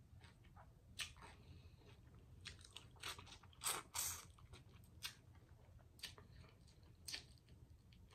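Faint close-miked eating sounds: scattered mouth clicks and smacks as seasoned shrimp is picked up and bitten, the loudest bite about four seconds in.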